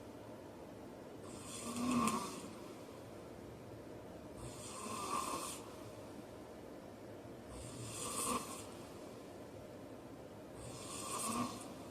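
A man snoring in sleep: four snores about three seconds apart, each building up and then stopping, the first the loudest.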